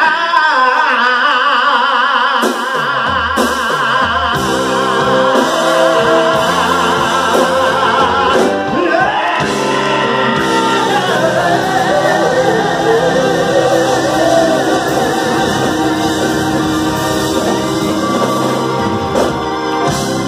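Live band playing with singing: a voice holds long notes with a wide vibrato, and a few seconds in the bass and drums come in underneath and carry on with the singing over them.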